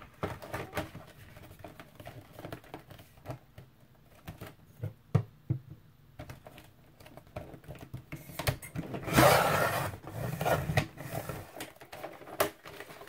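Cereal-box cardboard being handled and cut on a sliding paper trimmer. Scattered light taps and rustles come as the cardboard is shifted against the trimmer, and about nine seconds in there is a rasping scrape lasting about a second as the trimmer's blade runs through the cardboard.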